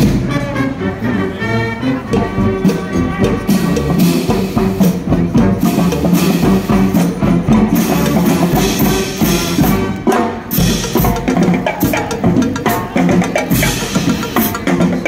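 Marching band playing on the move: a drum line of snare and tenor drums beating a brisk, steady rhythm, with the band's horns carrying a tune underneath.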